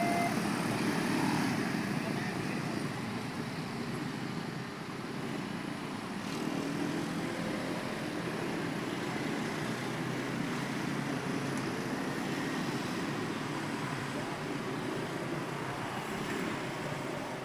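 Road traffic moving over the railway level crossing: a steady mix of engines and tyre noise that eases a little over the first few seconds, then holds. The crossing's electronic warning tone cuts off right at the start.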